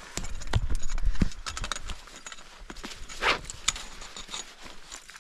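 A run of sharp metallic clicks and scrapes from climbing hardware (ice tools, crampons, gear) against rock, with low thumps through the first second or so. The clicks thin out after that, and a short rushing scrape comes a little past three seconds in.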